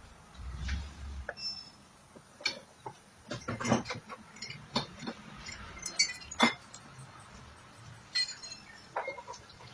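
Irregular clinks and knocks of small hard parts and tools being handled, in quick clusters through the middle, with a brief low thud-like rumble near the start.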